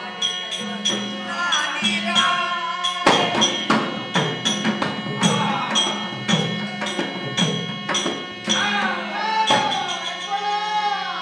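Music accompanying a leather shadow-puppet show: a voice singing in gliding phrases over a held drone, with sharp percussion strikes keeping a quick steady beat.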